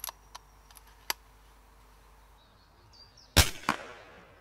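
A few faint clicks near the start, then about three and a half seconds in a sharp shot from a Daystate Huntsman Revere PCP air rifle, followed a fraction of a second later by a second crack and a short fading tail.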